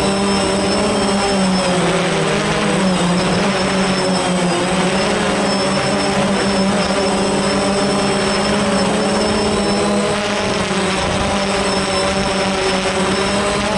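DJI Phantom quadcopter's motors and propellers whining steadily, heard close from its own onboard camera, the pitch wavering a little as the drone descends slowly toward landing.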